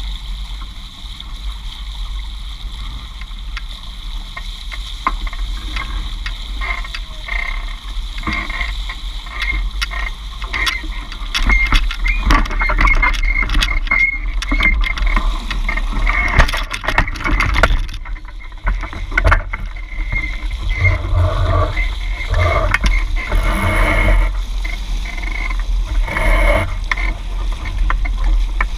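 Hobie 16 catamaran under sail, heard from a camera on its boom: a steady wind rumble on the microphone over water rushing and slapping along the hulls, with scattered knocks and clicks from the boat and rig. It grows louder and busier from about twelve seconds in.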